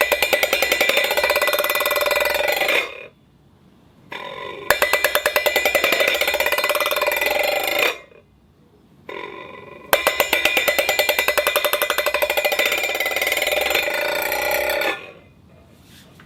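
A ball rolling and rattling around inside a dog food bowl, making the bowl ring with wavering tones over a fast stream of ticks. It happens in three bouts: one at the start that stops after about three seconds, one from about four to eight seconds in, and a longer one from about ten to fifteen seconds in.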